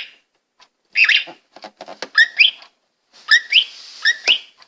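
Birdsong chirps from a motion-activated bird device: short, repeated whistled phrases with gaps between them.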